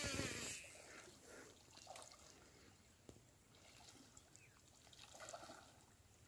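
Faint water trickling and sloshing around legs wading in shallow marsh water, after a noisy rush that fades out within the first half second.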